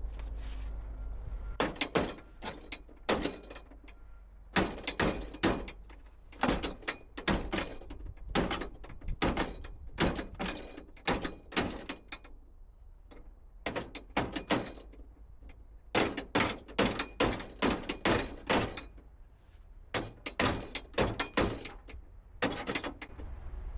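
Repeated sharp knocks and bangs in irregular clusters of several strikes, from hands and tools working on a scrapped car's door to get its trim and window off.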